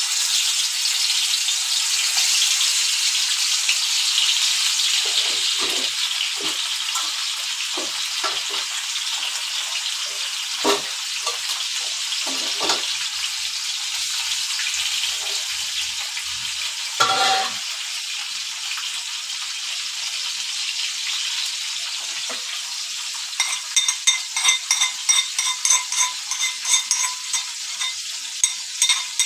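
Masala-coated Indian mackerel (bangda) sizzling as it shallow-fries in oil in a grill pan, a steady hiss. About 23 seconds in, quick ringing clinks take over, two or three a second, from a spoon working in a bowl of ground green chilli, coriander and garlic.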